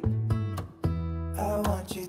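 Background music: a relaxed song played on acoustic guitar, with notes plucked and strummed in a steady rhythm.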